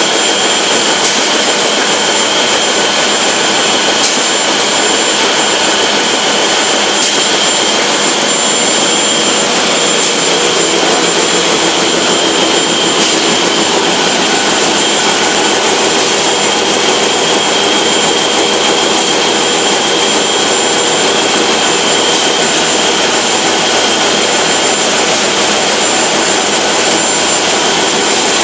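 Fameccanica FNL sanitary napkin production line running: a loud, steady machine noise with two high, steady whines and a few faint clicks.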